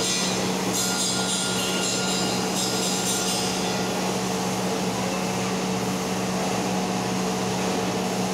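TIG welding arc burning steadily on an electric motor's armature: a continuous buzzing hiss over a constant hum, with a sharper crackle during the first three seconds or so.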